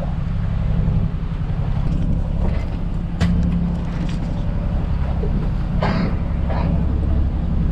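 Fishing boat's engine running with a steady low hum, with two sharp knocks, about three seconds in and near six seconds.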